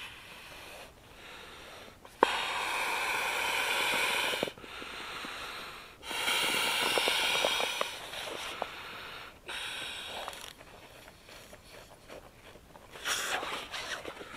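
A man blowing air by mouth into the valve of a self-inflating camp pillow that does not fill on its own. Two long, strong blows come about two and six seconds in, with shorter, quieter breaths between and after.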